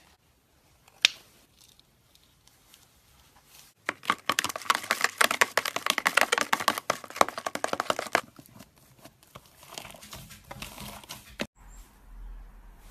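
Slime stress ball being cut open: a sharp click about a second in, then about four seconds of dense, crinkly crackling, with fainter crackles afterwards.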